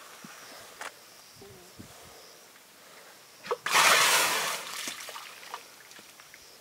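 African elephant blowing a loud, breathy rush of air out through its trunk, about a second long, a little past halfway. It is preceded by a short click.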